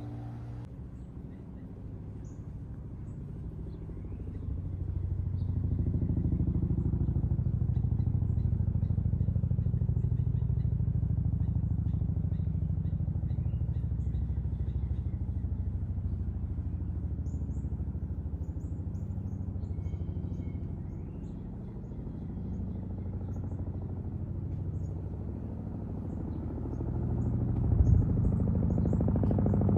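Jet airliner engine noise, a low steady drone that swells a few seconds in and holds, eases off, then builds again near the end, with a brief thump just before the end. Faint high chirps sound over it.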